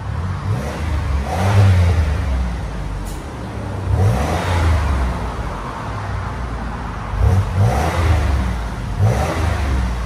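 Exhaust of a 2003 Buick Regal's 3.8-litre supercharged V6 through a Borla Pro XS muffler, with the factory resonator kept and a high-flow converter. The engine is revved repeatedly from idle, the note rising and falling about four times over a steady rumble.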